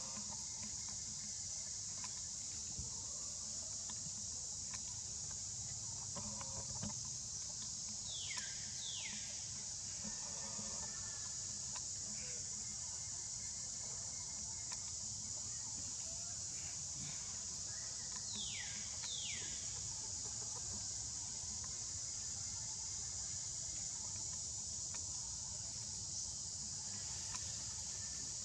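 Steady high-pitched drone of insects in the trees. Twice, about a third and two-thirds of the way in, a pair of quick falling calls sounds over it.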